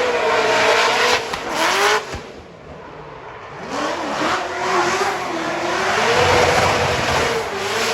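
Formula Drift car driven sideways, its engine at high revs with the pitch wavering up and down as the throttle is worked, over squealing tyres. About two seconds in the engine drops off suddenly, then it builds back up to full noise.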